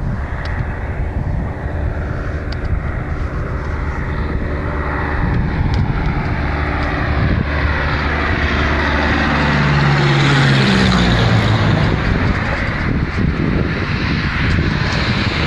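Cessna 152's four-cylinder Lycoming engine and propeller droning as the plane comes in to land and passes close by, loudest and falling in pitch about ten seconds in.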